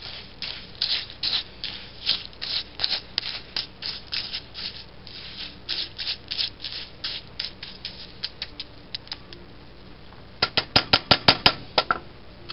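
Birdseed soaked in melted butter being stirred in a mold: a run of short scraping strokes, about two or three a second, then a quick burst of louder, sharper clicks near the end.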